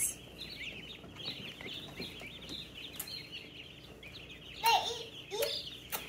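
A large brood of days-old baby chicks and turkey poults peeping continuously, many short high chirps overlapping.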